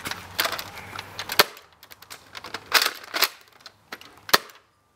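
Nerf Elite Retaliator spring-powered dart blaster fired twice, about three seconds apart. Between the shots come two clacks of the priming slide being pulled back and pushed forward.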